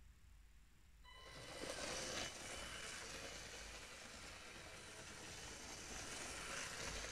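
LEGO train running around plastic track, its motor and wheels making a steady whirring rattle. It starts about a second in, swells briefly, then holds steady.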